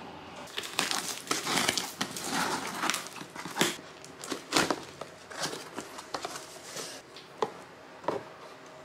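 Cardboard shipping box being opened by hand: its flaps are pulled back, with irregular rustling, crinkling and scraping of cardboard and packing tape and a few sharp cracks. The handling is busiest in the first half and thins to scattered crackles later.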